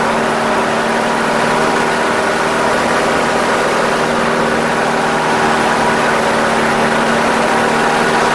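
Propeller-driven light aerobatic aircraft's piston engine running at a steady note through an aileron roll, with propeller drone and air rush heard inside the cockpit.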